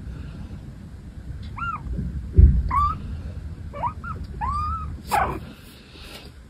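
A kitten mewing: about five short, high mews that rise and fall in pitch, coming in quick succession. A low thump about two and a half seconds in is the loudest sound.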